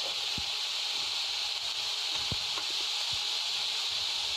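Raw rice frying in hot oil in a kadhai, a steady sizzle as the grains are toasted before water is added, with a few soft scrapes and taps of a perforated spoon stirring it.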